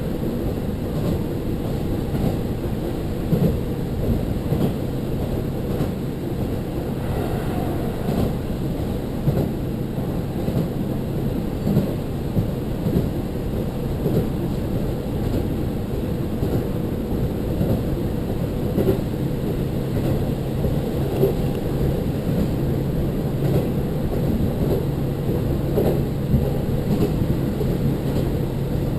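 Diesel railcar running along the line, heard from inside the passenger car: a steady low engine drone and wheel rumble with occasional small knocks from the track.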